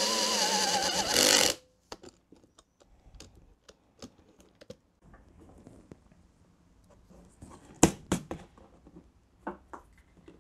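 Electric drill spinning an adjustable circle hole cutter through a plastic car door trim panel, a steady whine that cuts off suddenly about one and a half seconds in. Then light clicks and a couple of sharper knocks from handling the cut-out and parts.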